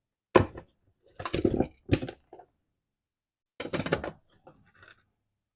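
Loose truck parts and hardware being rummaged through by hand in a box. A sharp knock comes first, followed by two spells of clinks, knocks and rattles with brief quiet gaps between them.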